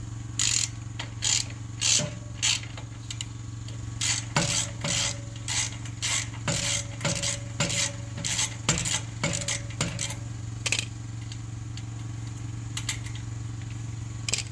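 Small metal clicks and scrapes as the surrey bike's rear-wheel adjustment bolts are unscrewed and worked loose from the frame by hand: a run of irregular light clicks, a few with a short ring, thinning out after about ten seconds.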